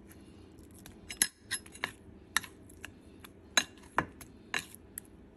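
Metal spoon clinking against a plate while turning plantain slices in thick batter. About eight sharp, irregular clinks, some close together.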